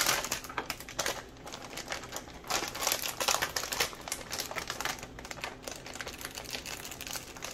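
Plastic microwave steam bag of Brussels sprouts crinkling and rustling as it is opened and tipped, with a sharp crackle at the start and many light clicks throughout.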